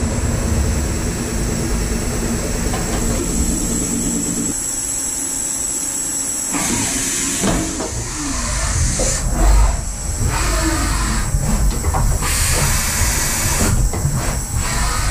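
DMG MORI CTX beta 1250 TC turn-mill centre running, with a steady machine hum. From about six and a half seconds in, the axis drives whine up and down in pitch as the milling head travels, broken by several bursts of hissing and one thump about nine and a half seconds in.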